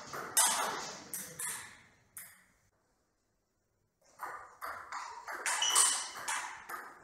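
Table tennis rally: a celluloid-type ball clicking sharply off the paddles and the table in an irregular run of hits. The hits break off for about a second and a half of silence near the middle, then resume.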